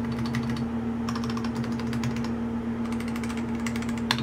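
Typing sound test on an Akko 5075S gasket-mount mechanical keyboard with Akko CS Starfish linear switches, YongQiu Blue Ninja PBT double-shot keycaps and stock stabilizers: quick runs of keystroke clacks with a short pause in the middle.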